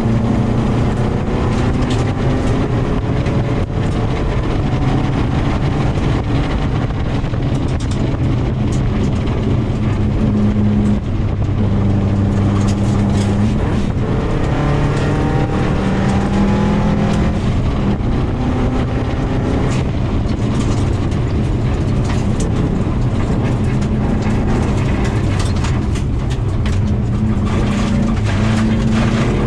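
Subaru WRX turbocharged 2.0-litre flat-four engine heard from inside the cabin at rally pace on gravel, its pitch repeatedly rising and dropping through accelerations and gear changes. Frequent sharp clicks and knocks of gravel striking the car run over the engine sound.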